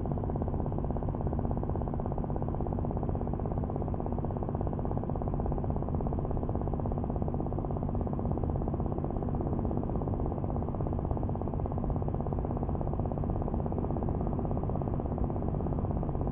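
Steady low machine hum made of a few fixed low tones that hold unchanged throughout.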